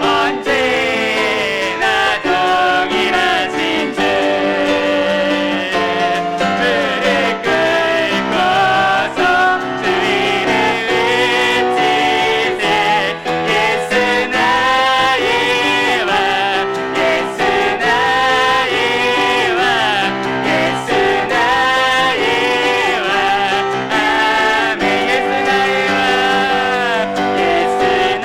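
Church praise team singing a worship song in Korean with piano accompaniment, continuous and full throughout.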